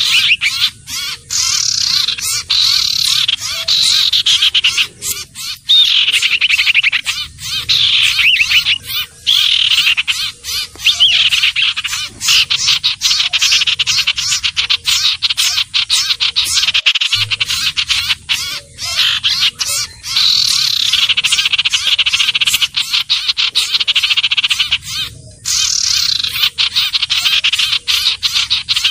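Loud, high-pitched bird-lure recording of sirtu/cipoh (iora) calls: dense rapid trilling chatter with sweeping phrases repeating every few seconds, almost without a break.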